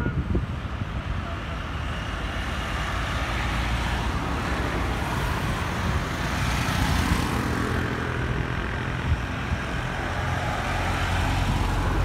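Road traffic passing on a highway: motorcycles and cars going by, one motorcycle passing close about halfway through, then another vehicle's engine growing louder as it approaches near the end.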